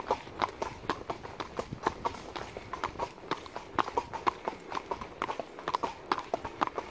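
Horses' hooves clip-clopping at a walk: a continuous run of sharp hoof strikes, several a second in an uneven rhythm.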